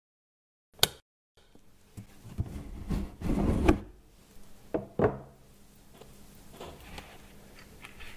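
A box being handled and opened: a sharp click about a second in, then rubbing and scraping as the lid is worked, and two thumps around five seconds in as it comes off. A faint low hum runs underneath.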